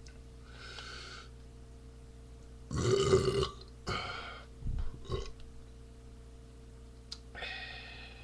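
A man's loud beer belch about three seconds in, followed by two shorter sounds over the next two seconds.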